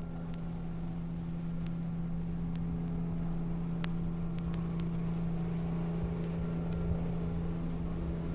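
Crickets chirping steadily over a constant low hum, with a low engine-like rumble building up in the second half.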